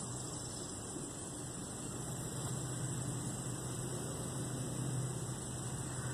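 Steady low hum under a constant hiss, with a thin high tone held throughout, growing slightly louder about two seconds in.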